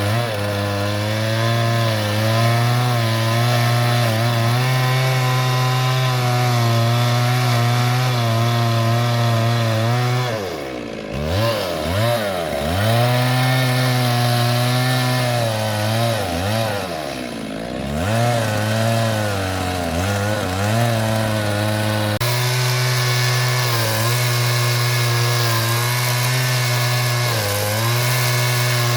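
Two-stroke chainsaw running hard at a steady engine pitch while cutting wood. Twice, about ten seconds in and again about sixteen seconds in, the engine speed drops sharply, swings up and down, and climbs back to full speed.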